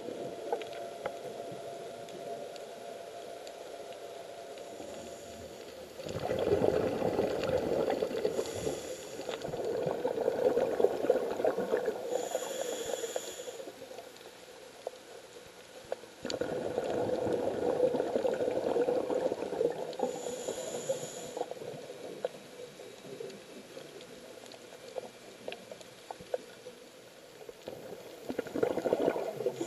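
A scuba diver breathing through a regulator underwater: surges of exhaled bubbles rumbling past the camera, with short hisses of inhalation between them, about four breaths. Faint crackling clicks sound throughout.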